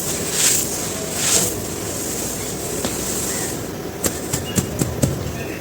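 Dry cement chunks being crushed and crumbled: gritty crunching strokes in the first second and a half, then a quieter grinding stretch, then a quick run of about five sharp cracks near the end.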